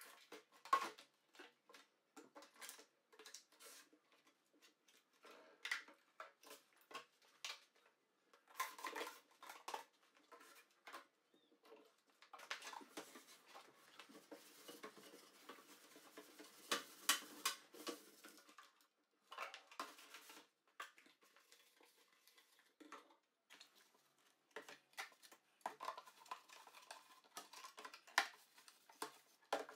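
Small household items being handled by hand: a run of light clicks, taps and knocks as things are picked up and set down, with a longer stretch of rustling around the middle.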